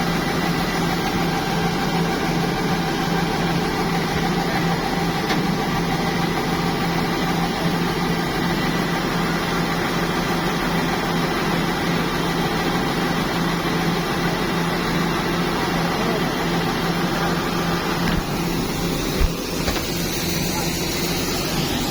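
Farm harvesting machinery's engine running steadily with a constant drone, and a single knock about nineteen seconds in.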